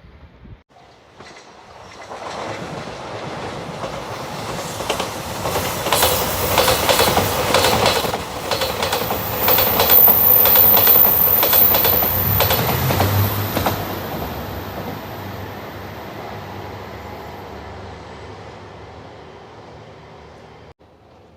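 JR Shikoku 2700 series diesel express train passing, its wheels clicking rapidly over rail joints. The sound builds over a few seconds, is loudest in the middle, with a low engine hum, and then fades slowly as the train moves away.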